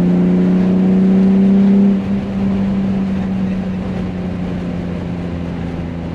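BMW E36 M3 straight-six engine heard from inside the cabin, pulling hard with its pitch slowly climbing, then about two seconds in the throttle comes off and it settles to a quieter, steady cruising drone.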